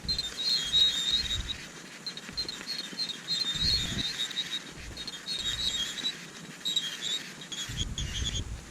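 Small birds twittering in short, high, irregular chirps, with gusts of wind rumbling on the microphone now and then.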